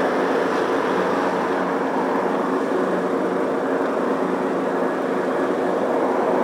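Riding lawn mower's engine running steadily, a constant even drone.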